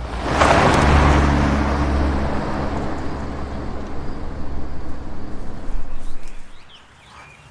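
A car driving off: engine rumble and road noise surge suddenly just after the start, then fade away over several seconds.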